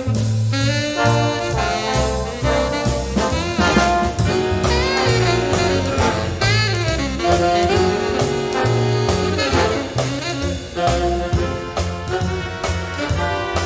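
Upbeat jazz music led by brass and saxophone, with a steady beat.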